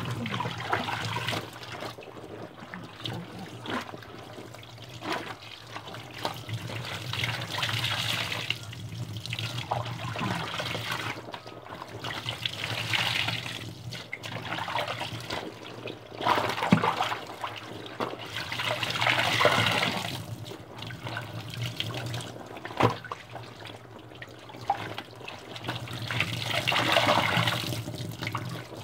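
Water running and sloshing as clothes are washed, swelling and easing every few seconds over a steady low hum, with an occasional light knock.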